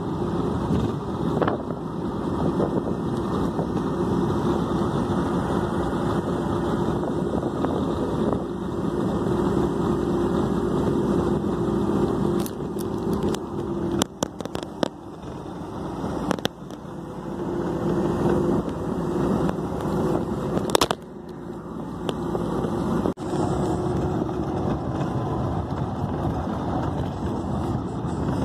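Interurban bus cabin at road speed: the engine's steady drone and continuous road and tyre noise. A few sharp clicks come roughly midway, with brief dips in the noise.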